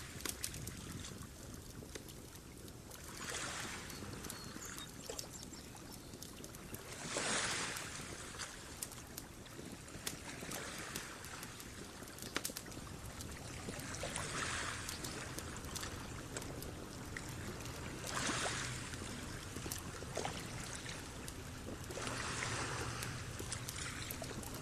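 Small waves lapping on a lakeshore, a wash of water swelling up every three to four seconds, with faint scattered crackles from a log burning on a cast-iron Dutch oven lid.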